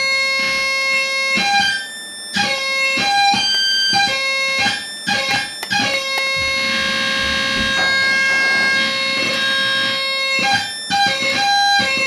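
Electronic oscillator putting out a steady tone whose pitch is set by a joystick's potentiometer: it holds one note, jumps to another and back, with a few short breaks as the stick is moved.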